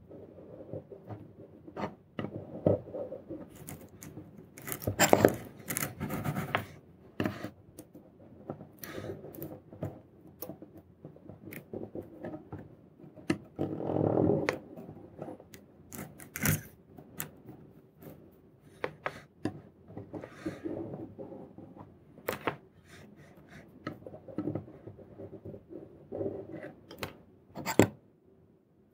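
Scattered small clicks, taps and scrapes of hand work on a soldered circuit-board assembly: a soldering iron and solder wire touching the joints and the boards being shifted and turned.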